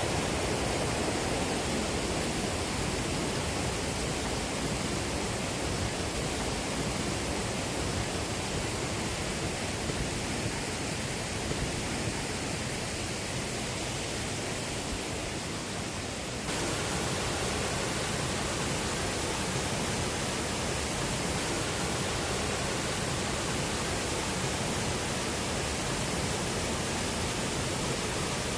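Cascading mountain water rushing steadily, a dense even hiss. About sixteen seconds in, the sound changes abruptly and becomes a little louder and brighter.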